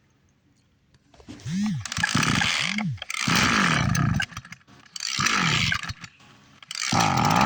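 Goat bleating loudly over and over: two short cries about a second in, then four longer, harsher cries, each about a second long.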